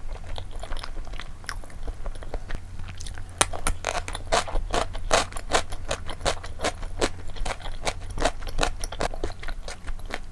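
Close-miked chewing of malatang with chewy flat tapioca noodles: wet mouth clicks and smacks, several a second.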